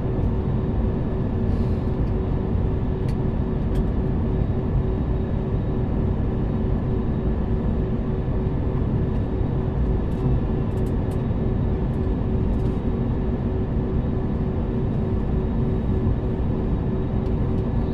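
Steady rush and hum inside an airliner cabin, its jet engines at idle, with a steady whine and no rise in power.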